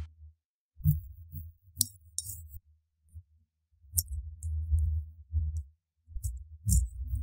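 Mozzarella being grated on a flat stainless-steel hand grater held against a ceramic plate: three bursts of rubbing, scraping strokes with a few light metal clicks on the plate, separated by short pauses.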